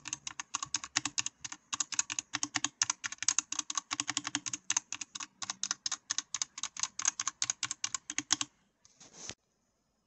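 Fast typing on a Dierya DK61E optical-switch mechanical keyboard, a quick stream of key clicks. The typing stops about eight and a half seconds in, followed by a brief noise and then quiet.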